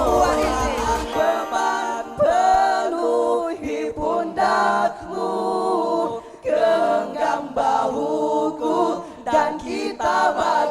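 A cappella vocal group singing in harmony: several voices, no instruments.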